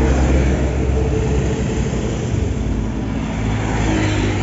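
Highway traffic passing close by, with motor scooters and trucks. The low engine hum of a passing vehicle fades over the first second or two, and the noise of another approaching vehicle builds near the end.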